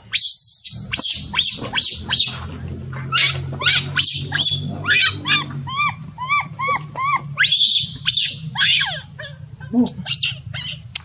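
Baby monkey crying out repeatedly: shrill long cries at the start and again past the middle, with a run of short high chirps, about three a second, in between.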